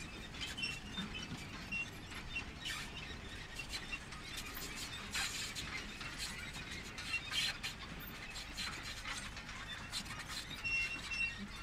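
A steady mechanical clatter under a hiss, with scattered clicks and a few short high squeaks, the loudest of them near the end.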